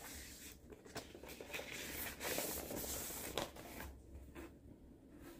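A vinyl LP being slid out of its paper inner sleeve: soft papery rustling and rubbing with a couple of light clicks, falling quieter after about four seconds as the bare record is handled.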